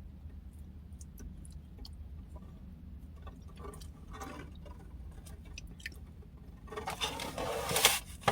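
A person chewing food close to the microphone, with small wet mouth clicks, and louder noisy sounds near the end.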